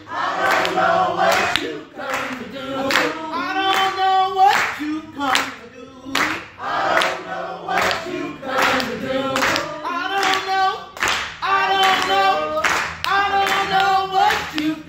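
Gospel praise song sung in church, with hands clapping along in a steady beat.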